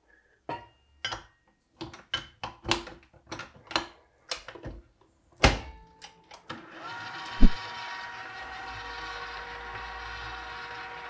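Clicks and knocks as ingredients go into the stainless bowl of a KitchenAid Classic stand mixer. About seven seconds in, its motor starts and runs steadily at low speed with a humming whine as the flat beater mixes the dough, with one thump just after it starts.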